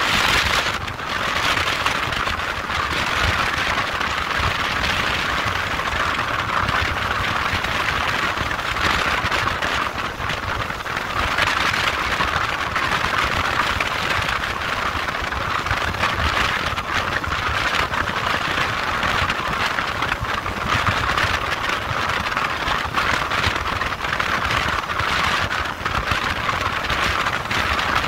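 Steady rush of wind and road noise from a moving motorcycle, with a low rumble underneath.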